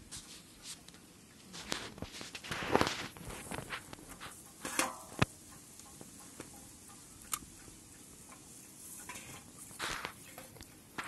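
Irregular rustling and a few light knocks and clicks, the sound of people shifting about in grass and handling gear, with the loudest rustles about a third of the way in, around the middle and near the end.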